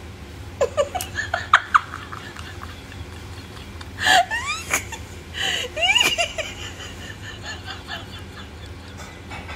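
A woman giggling and laughing in a few short bursts, about a second in, around four seconds and again near six seconds, with quieter gaps between.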